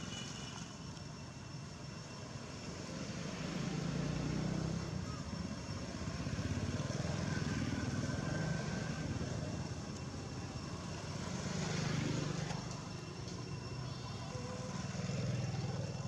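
Road traffic passing on a nearby road, a low engine rumble that swells and fades about four times as vehicles go by.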